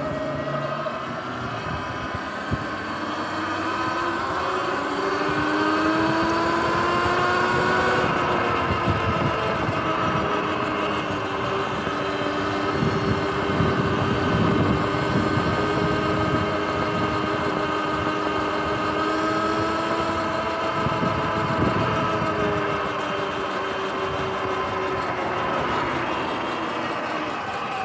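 Sur-Ron electric dirt bike's motor and drivetrain whining while riding. The whine rises in pitch over the first several seconds as the bike gains speed, holds steady, then drops near the end as it slows. Bursts of wind rumble hit the microphone in places.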